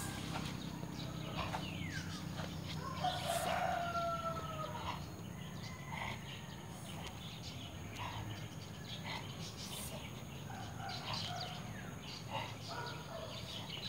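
A rooster crows once about three seconds in, one drawn-out call, over a steady low hum, with short bird calls here and there.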